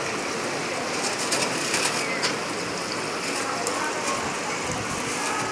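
Hot oil in a deep fryer sizzling steadily as chicken cutlets fry, with a few light metal clinks about a second or two in.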